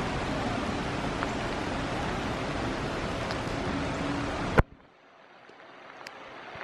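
Steady rush of a shallow, rocky stream running over rapids. About four and a half seconds in it cuts off suddenly with a click, and a much fainter hiss then slowly builds.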